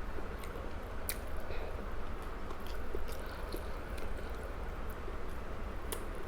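A person chewing food close to the microphone, with a few sharp clicks, over a steady low hum.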